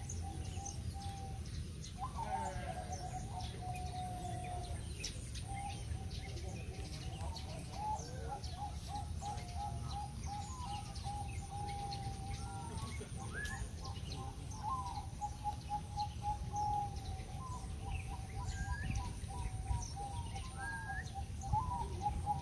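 Many caged zebra doves (perkutut) cooing at once, their rippling runs of quick repeated notes overlapping in a steady chorus. Thin higher chirps come through now and then, over a steady low rumble.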